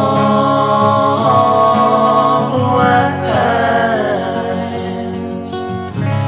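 Background song with acoustic guitar and a held, wordless sung vocal line.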